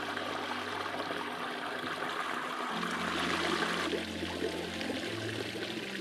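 Small mountain creek running over rocks in a steady wash, under soft background music that holds long low notes and changes chord twice.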